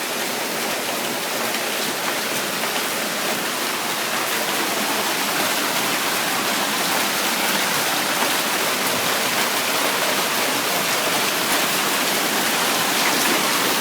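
Steady rush of a heavy hailstorm downpour, with runoff water running down the street.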